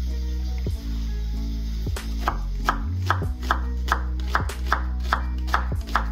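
Chef's knife slicing through an onion half onto a bamboo cutting board, in a steady rhythm of about two to three cuts a second starting about two seconds in. Background music with a steady bass plays throughout.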